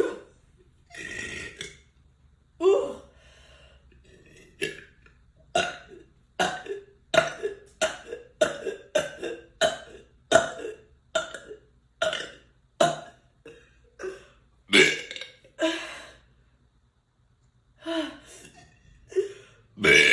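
A person burping over and over: a long string of more than twenty short burps, coming about two a second in the middle, then a short pause and a few more, with a long loud burp starting right at the end.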